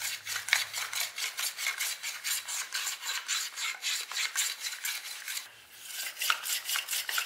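Japanese chamfer plane (mentori kanna) shaving a very light chamfer along a wooden edge in quick, short scraping strokes, several a second, with a brief pause about five and a half seconds in.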